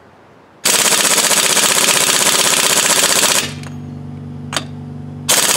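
AC Delco air impact wrench hammering on a lug nut of a Workhorse W22 front wheel, in a burst of about three seconds and a second short burst near the end. The nut does not break loose, because it is torqued beyond what the wrench can deliver. A steady low hum runs between the bursts.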